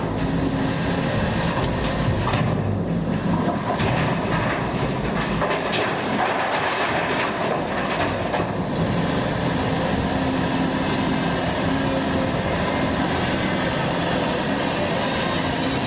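Volvo excavator's diesel engine running steadily under work, with a few sharp knocks in the first four seconds.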